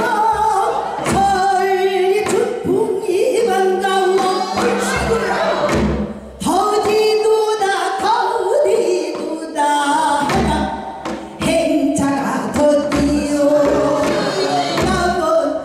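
Women singing a Korean folk song in the traditional gugak vocal style, one lead voice at the front and others joining in at times. Low drum strokes sound underneath the singing.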